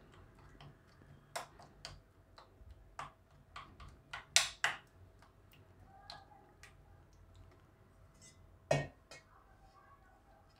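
Steel spoon stirring chili-garlic chutney in a plastic bowl while water is mixed in to loosen it, clicking and scraping against the bowl in irregular taps. The loudest taps come about four seconds in and again near nine seconds.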